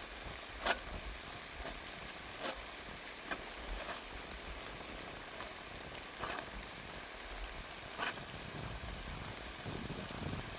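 Steady hiss of rain, with a few louder, irregular taps of drops landing close by.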